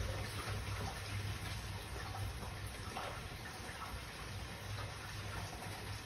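Steady rain falling, an even hiss flecked with many small drop patters, over a low steady rumble.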